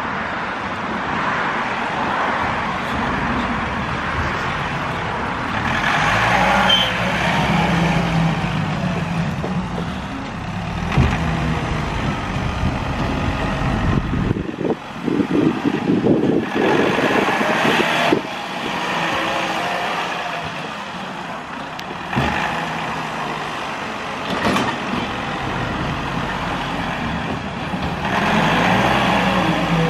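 John Deere compact utility tractor's diesel engine running under load with its rear-mounted snowblower spinning and throwing snow. The engine note and the blower noise swell and ease as the tractor manoeuvres, with a run of louder surges about halfway through.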